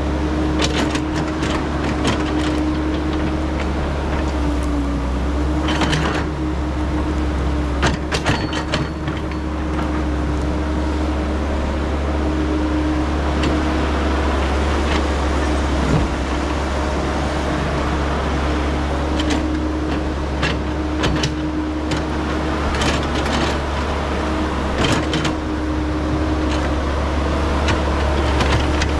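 Caterpillar 312 hydraulic excavator's diesel engine running steadily under load, a low drone with a held tone that wavers slightly, while sharp knocks and clanks come every few seconds as the bucket works dirt and brush.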